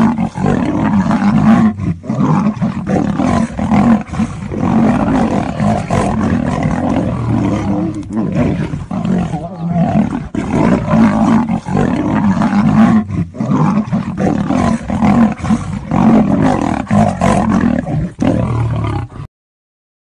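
Lion and tiger roaring as they fight, loud and almost without pause, cutting off suddenly near the end.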